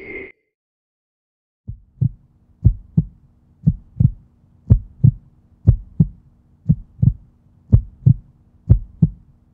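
Heartbeat sound effect: slow paired lub-dub thumps about once a second, beginning after a brief silence a little under two seconds in, over a faint steady low hum. A brief insect-like chirring cuts off at the very start.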